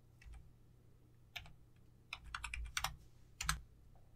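Faint computer keyboard typing: a few separate keystrokes, then a quick run of several more about two seconds in.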